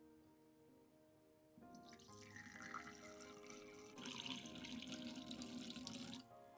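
Water running, starting about two seconds in, getting stronger about four seconds in and cutting off suddenly shortly before the end, over soft background music.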